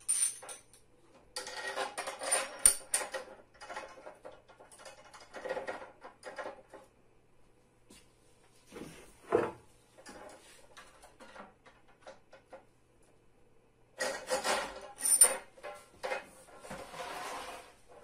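Standing-table parts being handled and fitted: irregular clatter, knocks and rubbing of the chrome column and a black plastic foot, in bursts with quiet gaps, and one short scrape about nine seconds in.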